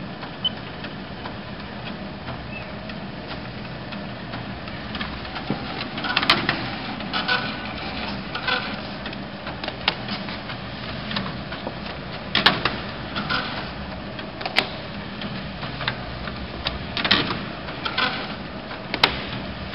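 GER Loto S 3200 leather measuring machine running with a steady hum, with irregular sharp clicks and knocks every second or so from about six seconds in.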